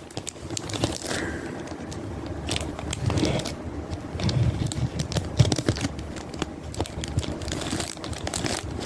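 Packaging being handled: irregular crinkling, crackling and scraping, with many small clicks and knocks.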